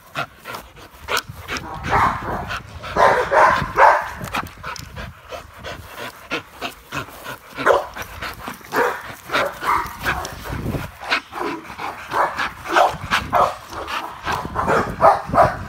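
American bully-type dogs barking in repeated short bursts.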